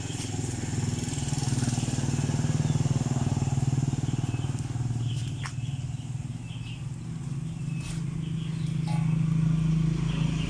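A small engine runs steadily in the background with a low, even hum, and there is one sharp click about five and a half seconds in.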